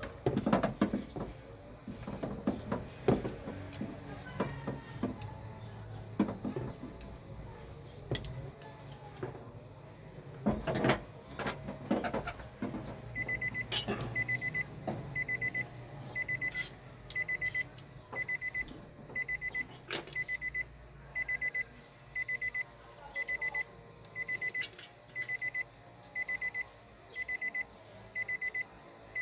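Scattered clicks and knocks for the first half, then an electronic beeper starts and sounds a short, pulsing high beep about once a second.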